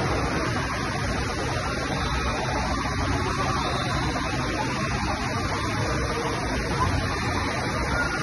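Steady rush of water from an indoor waterpark's wave pool and water features, a continuous noisy wash without distinct events.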